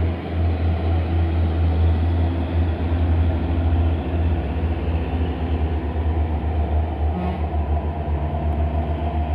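Diesel engines of medium cargo trucks running as they drive past close by: a deep, steady low rumble with a fine pulsing beat.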